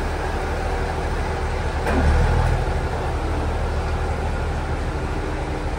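Diesel engine of a JR East KiHa 100 railcar idling at a station platform, a steady low rumble that swells briefly about two seconds in.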